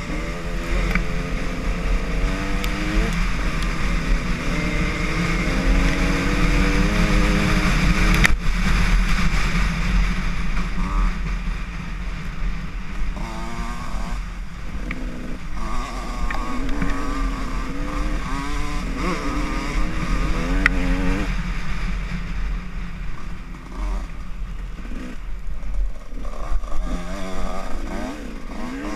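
Dirt bike engine running hard on a rough forest trail, its revs rising and falling over and over as the rider accelerates, shifts and backs off, with a sharp knock about eight seconds in.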